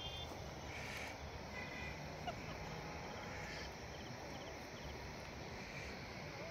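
Open-air hillside ambience: a steady low rush of wind on the microphone, with a few faint high chirps about a second in and again near two seconds.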